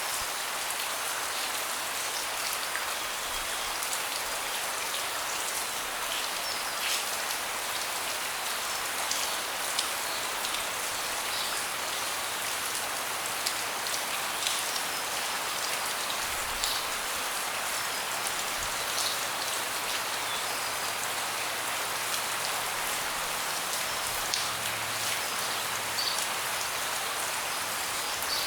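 Steady rain falling on a deck, with sharper single drop hits now and then.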